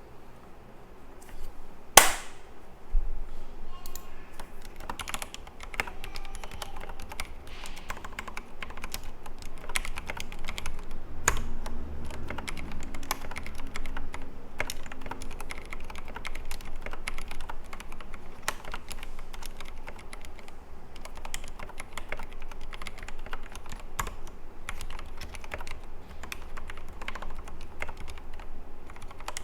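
Typing on a Logitech G Pro X mechanical keyboard fitted with Gateron Black linear switches lubed with Krytox 205g0: a single sharp, louder click about two seconds in, then a steady, dense run of keystrokes from about four seconds in.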